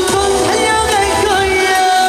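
Korean trot music: a melody line that slides between notes over a steady beat.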